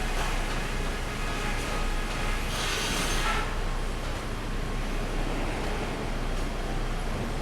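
Pallet sawmill machinery running, a steady mechanical rumble and rattle over a low hum. A brief harsher, higher stretch with a thin squeal comes a little before the middle.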